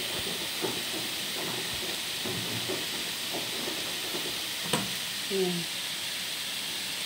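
Broccoli and green bell pepper sizzling gently in a frying pan over a low flame: a steady hiss, with a single sharp click about five seconds in.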